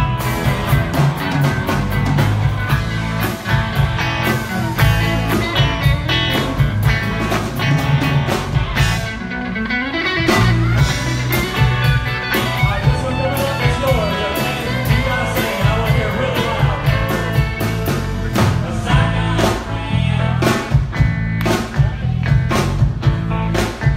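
A live rock band playing loudly through a PA: electric guitars, bass guitar, a drum kit with steady beats, and keyboard.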